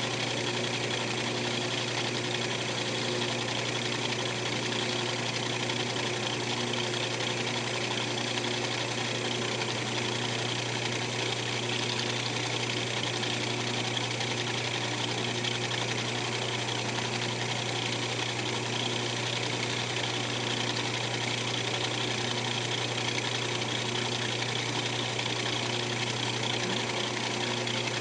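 Wood lathe running steadily, its motor humming evenly as a small blackheart keychain blank spins on a mandrel between centres.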